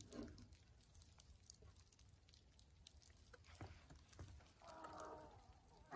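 Near silence, with a few faint, irregular clicks from a socket wrench tightening a wheel hub's castle nut. A brief faint call is heard near the end.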